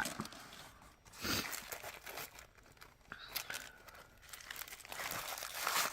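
Plastic packaging crinkling and rustling as it is handled and opened, in irregular bursts.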